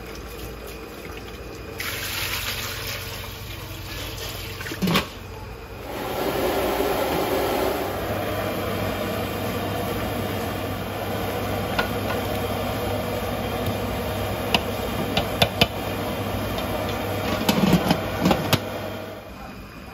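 Water pouring and running into a large aluminium cooking pot, with a few sharp metal knocks near the end as the lid goes on.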